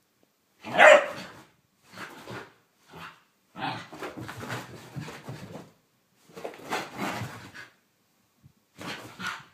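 Whippet barking in play in about six separate bursts, the loudest about a second in.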